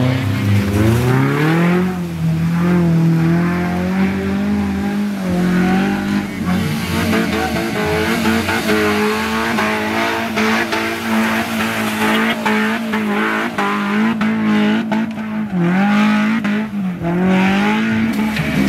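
Off-road 4x4 engines revving hard and held at high revs as the vehicles churn through deep mud. The pitch climbs about a second in and dips briefly twice near the end, with scattered knocks throughout.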